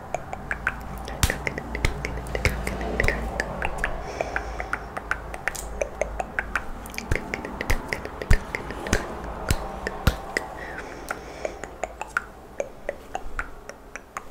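Close-miked ASMR mouth sounds: a fast, irregular patter of wet tongue clicks and lip pops, the 'coconut rain' trigger.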